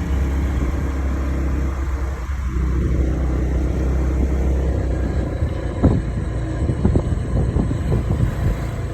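Road vehicle travelling: a steady low rumble, with a run of irregular knocks and bumps starting about six seconds in.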